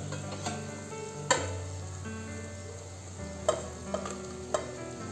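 Soya chunks tipped from a steel plate into a pot of hot oil and masala, sizzling and frying, with four sharp clinks of metal against the pot.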